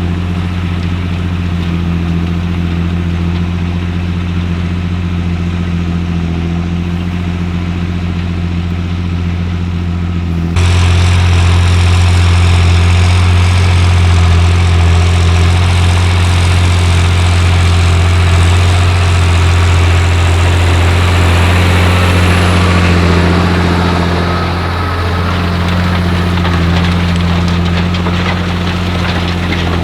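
John Deere 8300 tractor's six-cylinder diesel engine running steadily while pulling a seven-furrow plough. About ten seconds in the sound jumps abruptly louder and brighter, then holds steady.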